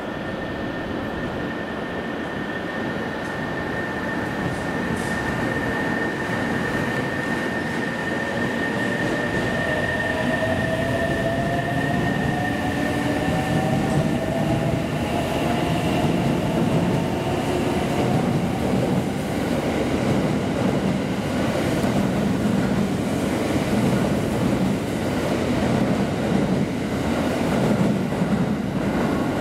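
JR West 683-series Thunderbird electric express train pulling away and accelerating past. Its inverter-driven motors whine with a pitch that climbs as it gathers speed, over a rumble and clatter of wheels on rails that grows steadily louder. A steady high hum fades out about twelve seconds in.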